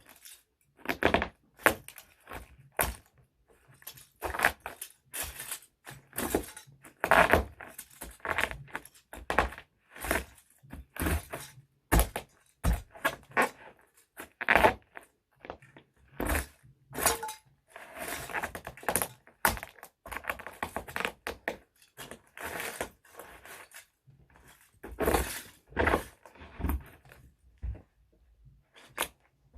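Small toy trucks being crushed: a run of irregular cracks, crunches and knocks, some sharp and loud, with short pauses between them.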